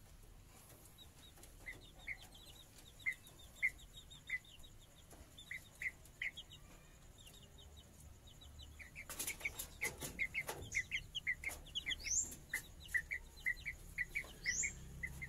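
Young chickens peeping: short repeated peeps, getting busier about nine seconds in, with a couple of rising cheeps and some brief rustling around that point.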